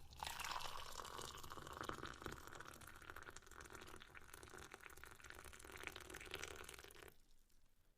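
Tea being poured into a cup: a steady splashing trickle of liquid that runs for about seven seconds, then dies away.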